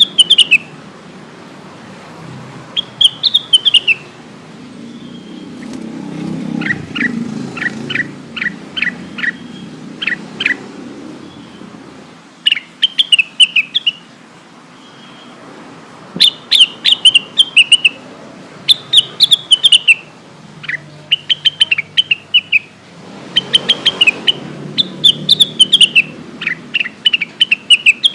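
Cucak wilis leafbird singing: bursts of quick, high chirping phrases separated by short pauses, with a run of sharp downward-sweeping notes in the middle.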